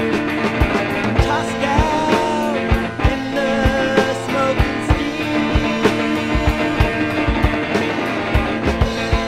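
Rock music: guitars playing over a steady drum beat of about two strokes a second.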